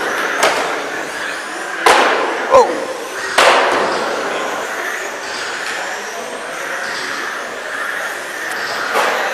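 Electric RC on-road race cars running on an indoor track: a steady whine of motors and tyres, broken by several sharp knocks, the loudest about two and three and a half seconds in, and a short falling tone in between.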